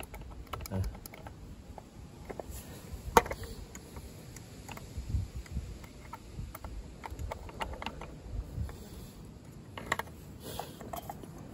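Scattered light clicks and knocks from handling a Honda Today scooter's belt-drive (CVT) cover as it is lifted off and set down, with one sharp click about three seconds in and a few more near the end.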